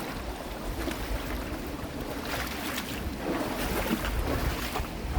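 Steady rushing wash of a clear mountain-valley stream, swelling slightly at times.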